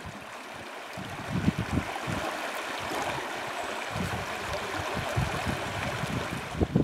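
Shallow creek rapids, water rushing over rocks past the canoe's bow. Irregular low rumbling sits underneath from about a second and a half in.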